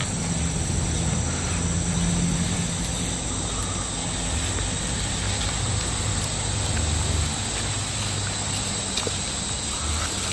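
Steady outdoor forest ambience: a constant high insect drone over a low, uneven rumble.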